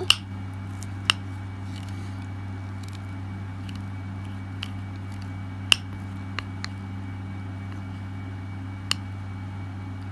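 Plastic baby spoon stirring rice in a bowl, giving a few sharp clicks and taps against the bowl at irregular moments. A steady low hum sits underneath.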